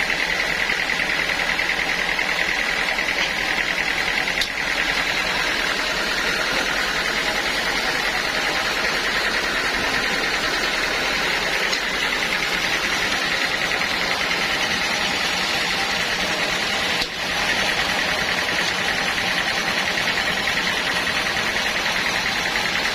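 Sawmill machine running steadily, with a high whine over a noisy background that dips briefly twice.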